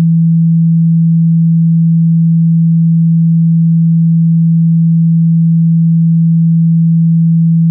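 A steady 165 Hz sine tone, one low unchanging pitch at high volume, played to vibrate water out of a phone speaker.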